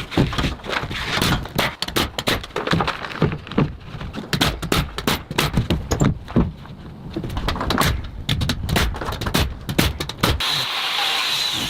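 Timber construction work: a dense, irregular run of knocks and clacks as wooden panels are handled and fastened on the cabin's upper walls. About ten seconds in the knocking stops and gives way to a steady hiss with a faint high whine.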